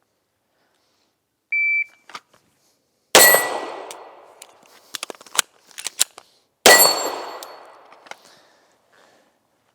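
A PACT Club III shot timer gives its start beep, a short steady high tone. About a second and a half later a handgun fires, and a second shot follows about three and a half seconds after that, each with a long echoing decay. A few light clicks come between the shots.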